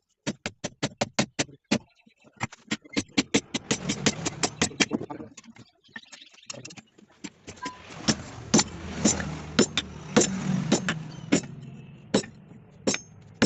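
Blacksmith's hammer striking metal on an anvil in quick runs of about six blows a second. After a short pause about six seconds in, slower, louder single blows follow.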